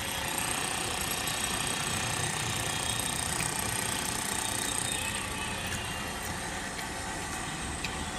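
Steady rumble of an idling motor vehicle engine, with a few faint clicks in the second half.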